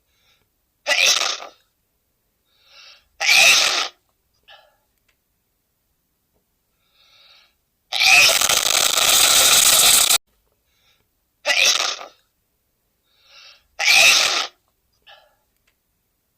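A man sneezing again and again: four short, loud sneezes, most with a faint breath in just before, and one longer burst lasting about two seconds, with silence between them.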